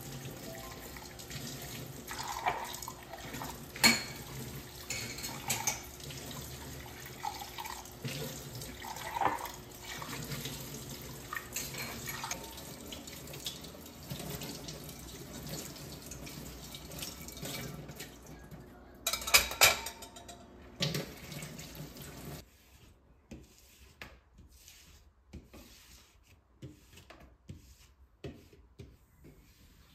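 Water running from a tap into a sink, with scattered knocks, until the flow stops about 22 seconds in; a few light knocks follow.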